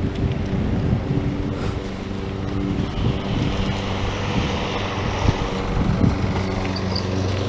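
An engine running steadily at an even pitch, with wind buffeting the microphone.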